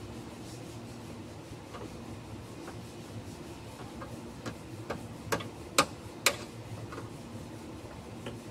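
Sharp clicks and snaps from work on a car's plastic underbody panel and its fasteners. The three loudest come about half a second apart a little past the middle, over a steady low hum.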